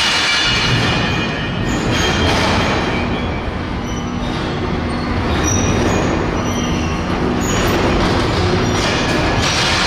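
Freight wagons being shunted slowly over deck rails, steel wheels rumbling on the track, with a few brief high-pitched wheel squeals partway through.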